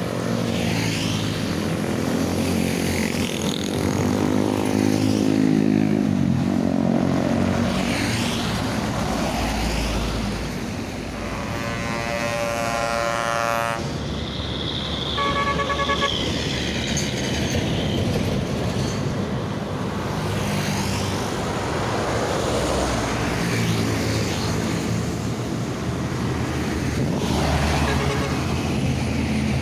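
Heavy road traffic, with buses or trucks passing and their engines swelling and fading. About twelve seconds in a vehicle air horn sounds for about two seconds, followed a second later by a few short horn toots.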